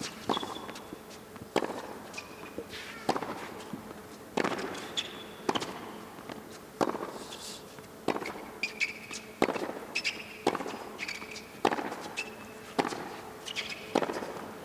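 Tennis rally on a hard court: racket strikes on the ball and ball bounces, sharp knocks about once a second, mixed with short high squeaks of players' shoes on the court surface.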